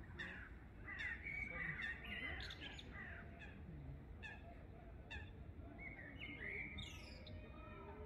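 Several small songbirds chirping and singing at once, their calls overlapping, with one short sharp note repeated about once a second. A steady low rumble runs underneath.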